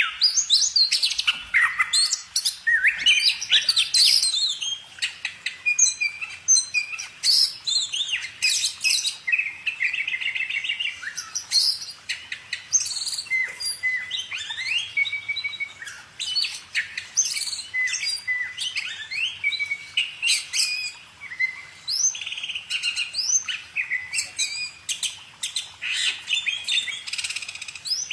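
Songbird singing in a long unbroken run of rapid chirps, trills and quick rising whistles.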